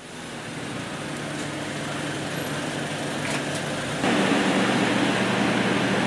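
Ambulance engine running with a steady low hum, siren off. It fades in and steps up louder about four seconds in.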